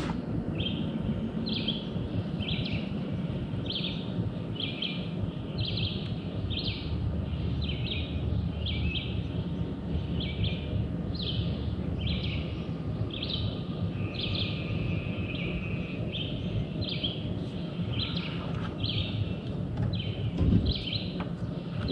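A bird calling over and over: short high calls, about two a second, over a steady low rumbling noise, with one louder knock near the end.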